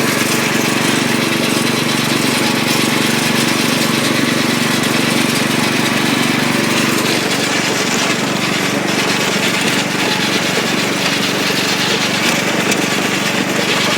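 Riding lawnmower's small engine running steadily at full throttle, its pitch holding level throughout.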